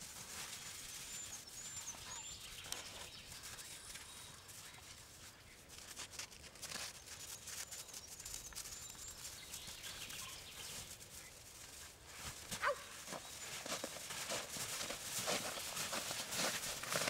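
Footsteps and dogs' paws crunching through snow as several dogs and a person walk about, growing louder and busier in the last few seconds. A few faint high chirps are heard in the first half.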